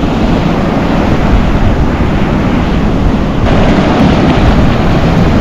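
Ocean surf breaking and washing up the beach, with wind buffeting the microphone. About three and a half seconds in, the hiss of the wash grows brighter and louder.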